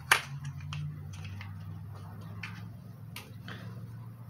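A small cardboard box being handled and opened by hand: one sharp click just after the start, then scattered lighter clicks and taps.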